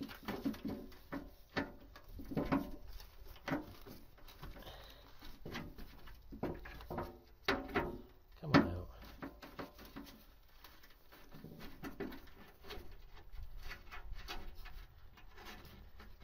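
Hand tool undoing the bolts of a car's engine undertray from underneath: irregular clicks and rattles of metal on the panel, with a sharper knock about eight and a half seconds in.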